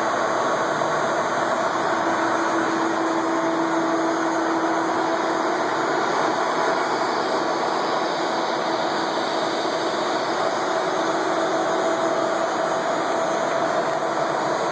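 Dean Smith & Grace engine lathe running under power, its 15 hp drive and spindle gearing giving a steady machine hum with a few held whining tones.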